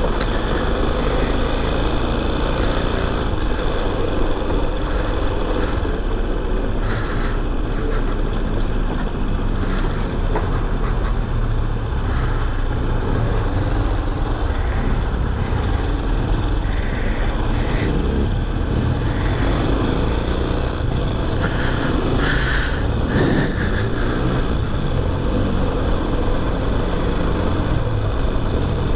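Chinese-made motorcycle's engine running steadily as it rides along a street, with a constant low rumble of wind on the microphone.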